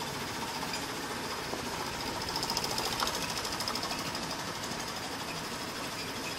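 Mamod SR1 toy steam roller's small single-cylinder oscillating steam engine running with a fast, even chuffing beat as it hauls a log trailer, a load the owner judges a little too heavy. The beat grows louder as it passes close by, about two to three seconds in, then eases off.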